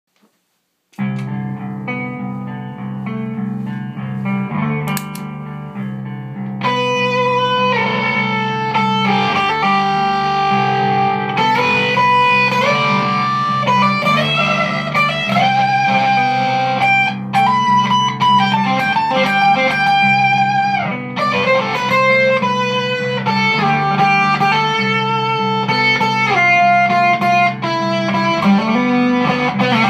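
Electric guitar played through a Ghost Effects MK1 Tone Bender fuzz pedal. A low, sustained riff starts about a second in, and sustained single-note lead lines join above it about six seconds later.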